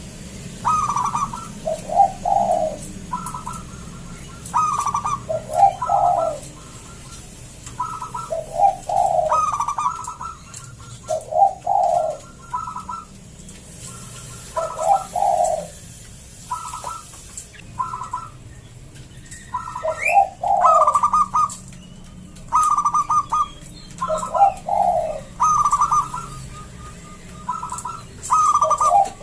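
Zebra dove (perkutut) singing steadily in a thick, full voice: repeated cooing phrases, each a few short higher notes followed by lower rolling notes, coming every two to three seconds with brief pauses between.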